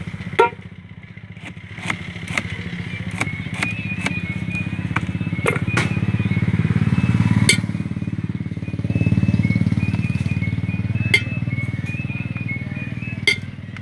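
A motor engine running steadily nearby, swelling twice in the middle, with scattered sharp knocks of a knife on a wooden cutting board.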